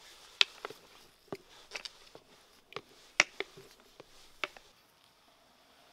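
Wooden stick knocking against the inside of a large glass bottle while stirring fermented berries: a string of sharp, irregular clicks and taps, about eight of them, stopping a little before the end.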